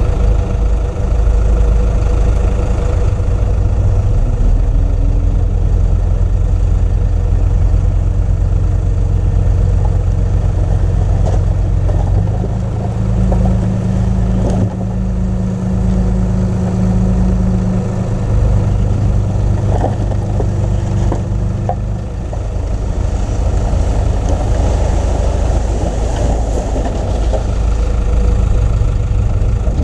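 Construction machinery diesel engine running steadily, its note changing about halfway through as the load shifts, with a few sharp knocks.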